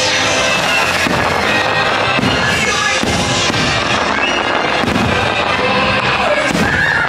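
Aerial fireworks shells going off in several bangs over loud show music.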